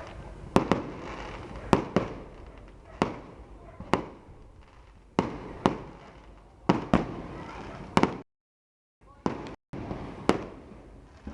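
Fireworks going off in a display: about a dozen sharp bangs, roughly one a second, each trailing off before the next. The sound cuts out completely for a moment about eight seconds in.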